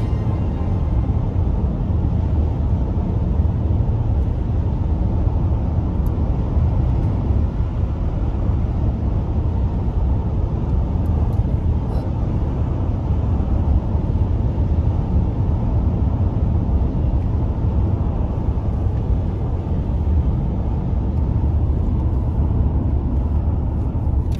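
Steady low rumble of road and engine noise heard inside a car cruising at highway speed.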